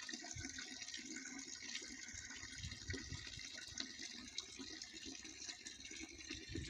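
Running water being poured in, a faint, steady splashing hiss.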